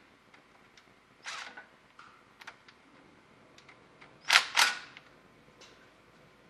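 Cordless power tool spinning in short bursts as it backs out transmission pan bolts: one burst about a second in, then two close together, the loudest, a little past four seconds, with a few light clicks between.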